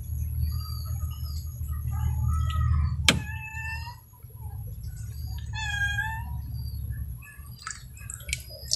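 Two drawn-out animal calls, one about three seconds in and one about six seconds in, among scattered short chirps, over a steady low hum.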